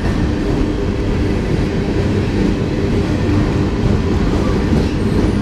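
Empty coal train's hopper cars passing directly below, a loud steady rumble of wheels on rail.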